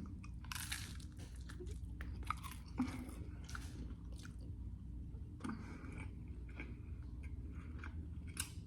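A person chewing and biting food close to the microphone, with scattered soft crunches and mouth clicks.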